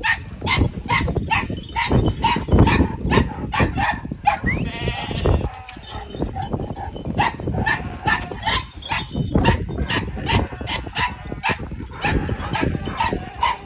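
Large Turkish shepherd dog barking rapidly and repeatedly, several barks a second, with a short break about five seconds in.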